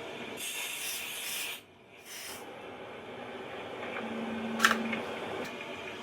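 Aerosol can of Smoke Sabre test smoke sprayed in two short hissing bursts, the first about a second long and the second shorter, to set off a smoke alarm. A sharp click follows about four and a half seconds in.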